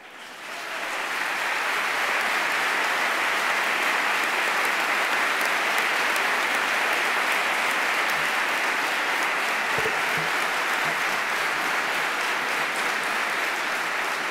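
Audience applauding in a large hall, building up over the first second or two and then holding steady.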